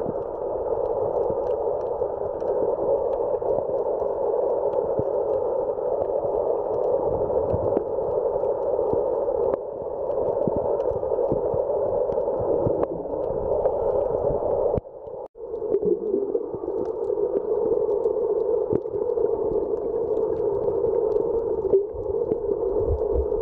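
Muffled, steady rushing drone of a camera recording underwater through its waterproof housing, with faint scattered clicks. The drone dips out briefly about two-thirds of the way through.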